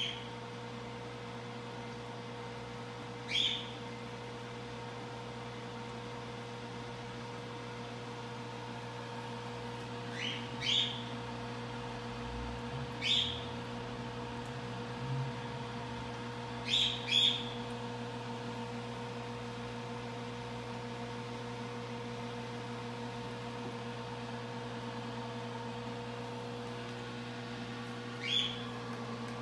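Steady electrical hum of the aquarium's running pump, with a bird chirping over it: short high chirps, singly or in pairs, every few seconds, most of them in the middle stretch.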